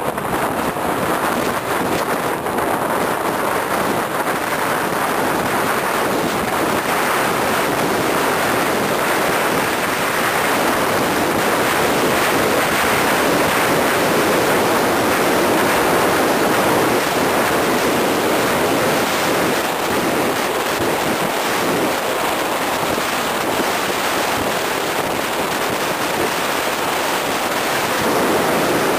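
Steady rushing roar of wind over a moving microphone at downhill speed, with road noise mixed in. It swells a little around the middle.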